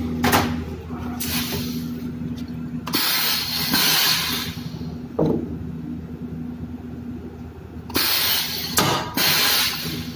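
Pneumatic cable-cutting press working: several bursts of compressed-air hiss from its air cylinder as the blade strokes through a heavy power cable and returns, the longest about three seconds in and another pair near the end. A steady low hum runs under it.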